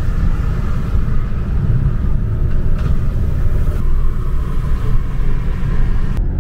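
Steady low rumble of engine and tyre noise heard from inside a moving car's cabin.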